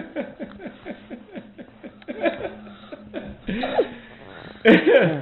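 A person laughing in a run of quick, falling ha-ha syllables, then breaking into further bursts of laughter, the loudest near the end.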